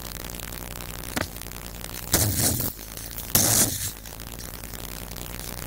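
Steady electrical hum and hiss, broken by a click about a second in and two short, loud bursts of rushing noise a little over a second apart.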